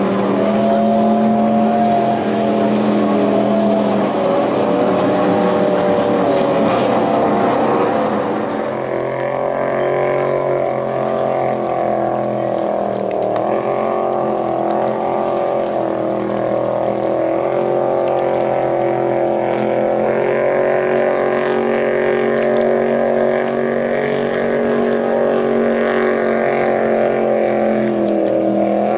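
Vintage wooden race boats' engines running at racing speed, a loud steady engine drone with gently wavering pitch and more than one engine note at once; the note changes about eight seconds in as a different boat's engine takes over.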